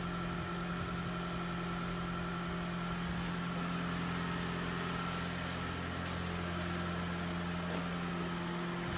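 An engine idling, a steady even hum that holds the same pitch throughout.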